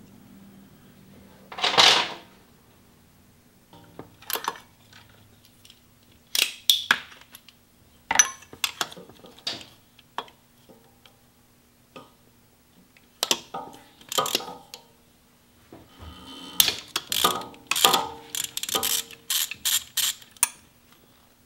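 Ratchet wrench clicking in short, irregular runs as a small bolt is loosened, with one louder rasping burst about two seconds in and quicker clicking near the end.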